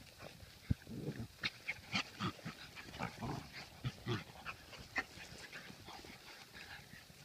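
Ten-week-old English Bulldog puppies playing, making a string of short, quiet puppy noises.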